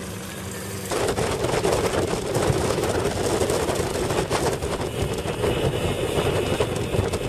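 Fishing boat's outboard motor idling, then opening up about a second in; the boat runs at speed with a loud, steady rush of engine and water noise.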